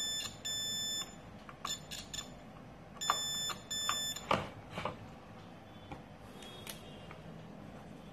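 SEW DT830D digital multimeter's continuity buzzer beeping four times, in two pairs about three seconds apart, as the probe tips touch points on a laptop motherboard, with sharp clicks and taps of the probes on the board in between. The beeps mean the probed points read as a short to ground.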